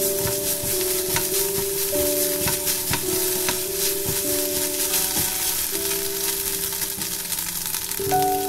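Fried rice sizzling in a nonstick wok as a spatula stirs and scrapes through it, with frequent short scraping strokes over a steady hiss. Soft background music of held notes plays underneath.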